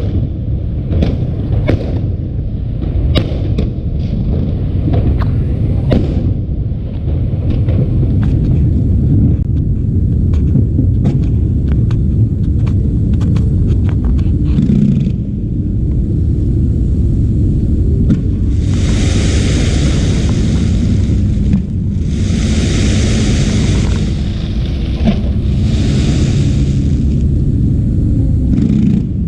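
Aerial fireworks going off: a string of sharp bangs over a constant heavy low rumble. From about two-thirds in, the bangs give way to three stretches of loud hissing.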